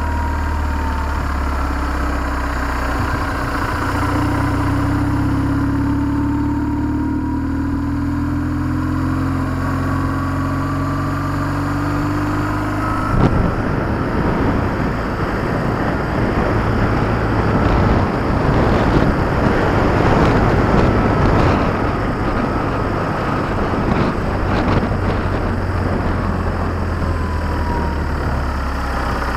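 BMW R1150GS Adventure's boxer-twin engine running under the rider, its note sliding slowly up and down with the throttle. About halfway through, a sudden rush of wind buffeting takes over and largely covers the engine, which comes through more clearly again near the end.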